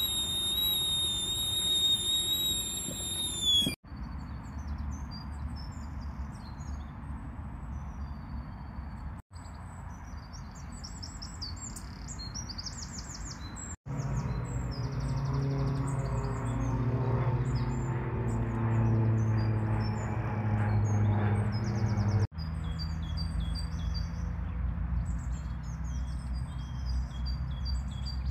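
Small songbirds chirping and singing in quick high phrases over a low rumble of wind or distant traffic, with a few abrupt breaks between short recordings. For the first few seconds a high steady whistle sits over the birds and drops in pitch as it cuts off. In the middle stretch a low engine-like drone runs under the birdsong.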